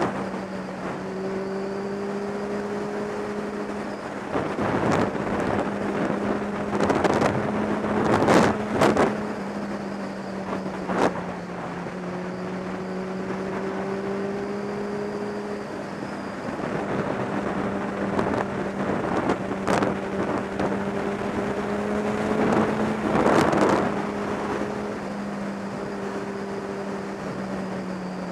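Kawasaki ZX-10R inline-four engine running at a steady cruising speed, its pitch holding nearly constant, with wind noise throughout. Several short, louder gusts of wind hit the microphone, the strongest about a third of the way in.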